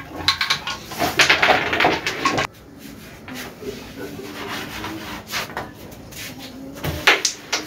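Wooden carrom men clicking and clattering on the board as they are gathered and stacked in the centre. About seven seconds in comes a sharp crack and clatter as the striker breaks the stacked pieces.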